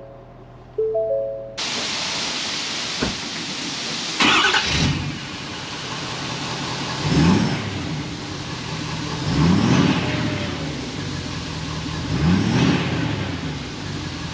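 Dashboard chimes in the cab of a 2019 Ford F-250. Then its 6.7 L Power Stroke turbo-diesel V8 idles, heard at the dual exhaust tips, and is revved up and back down four times.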